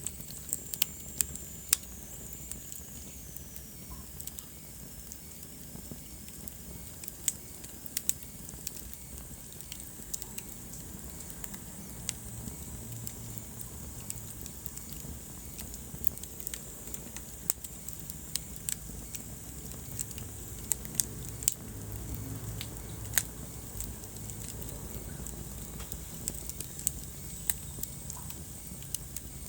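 Wood fire burning in a fireplace, crackling with irregular sharp pops over a steady low rumble of flame. A faint high whistle falls in pitch near the start.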